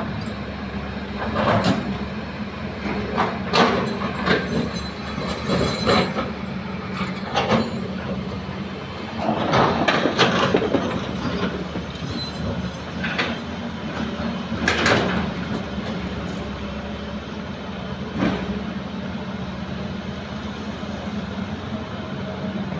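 Excavator's diesel engine running steadily while it works, with irregular clanks and knocks throughout and a louder, rougher stretch about ten seconds in.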